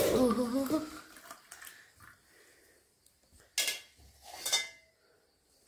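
Dishes and kitchen utensils clinking and knocking in a few separate clatters, the two loudest about three and a half and four and a half seconds in.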